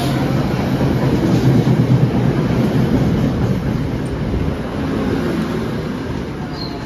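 NJ Transit Comet passenger coaches rolling past alongside the platform as the train slows into the station: a steady rumble of wheels on rail, easing off after the first few seconds. Near the end a thin, high brake squeal starts as the train comes to a stop.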